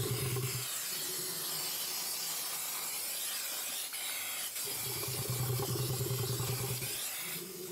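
Aerosol can of blue antiseptic wound spray hissing steadily as it is sprayed onto an elephant's leg wound, stopping shortly before the end. A low drone comes in twice under the hiss, briefly at the start and again for about two seconds later on.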